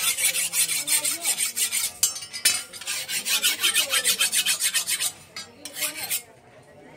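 Hand file rasping along the edge of an iron fish-and-vegetable cutter blade held on the anvil, in quick short strokes several a second, with a brief pause about two seconds in and a few last strokes before it stops near the end.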